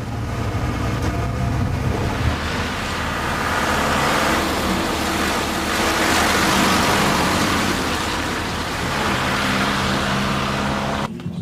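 Recovery truck's engine running with road and tyre noise as it drives past, swelling to its loudest about halfway through, then fading.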